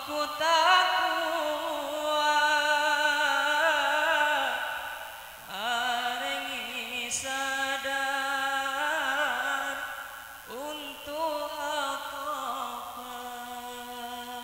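A single voice chanting long, ornamented phrases with a wavering pitch. There are three phrases, each opening with an upward slide, with breaks about five and ten seconds in.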